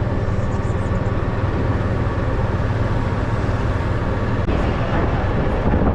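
Golf cart driving along a road: steady running noise from the cart and its tyres, with a low hum.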